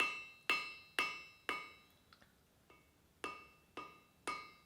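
Blacksmith's hammer striking a hot square iron bar on the anvil, each blow ringing. The smith is knocking in the corners to forge the square section toward round, on the diamond. There are four blows about half a second apart, a pause of about a second and a half, then three more at the same pace.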